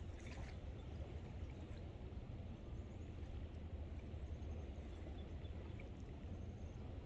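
Steady rush of flowing river water with a low rumble underneath.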